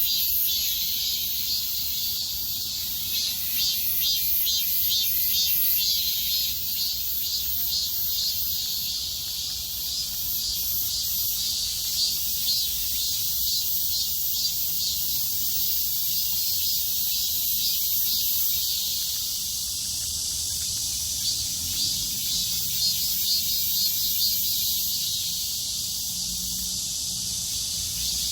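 Cicadas singing in chorus: a loud, continuous high-pitched buzz that pulses rapidly for the first several seconds, then settles into a steadier drone.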